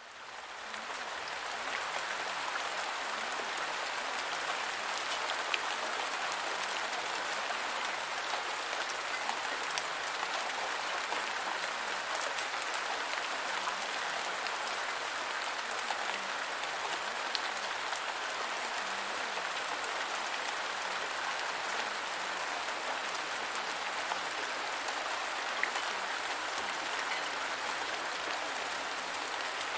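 Steady rain, fading in over the first second or so and then holding even.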